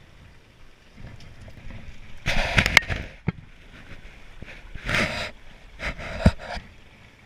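Kayak paddling: three splashing strokes of the paddle in the water, about two, five and six seconds in, with sharp knocks of the paddle against the kayak.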